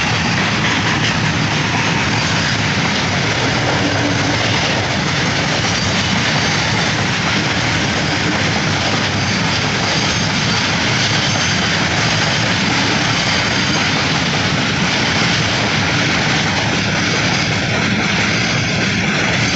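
Covered goods wagons of a freight train rolling past at close range: a steady, loud running noise of steel wheels on the rails.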